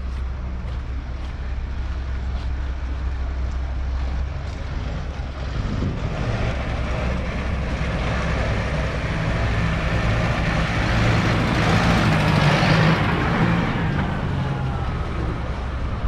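Tractor diesel engines running; one engine grows louder from about six seconds in, is loudest about three-quarters of the way through, then eases off.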